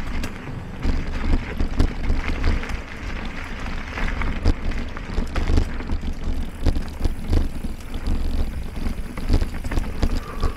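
Mountain bike rolling over a wooden bridge and onto a rocky dirt trail: steady tyre and drivetrain noise broken by frequent short knocks and rattles from the bumps. Wind buffets the microphone as the bike moves.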